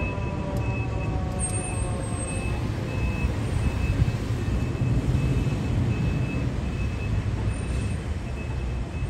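Fire engine's diesel engine rumbling as it pulls away down the street, the last falling tones of its siren dying out in the first second. A short high beep repeats about twice a second throughout.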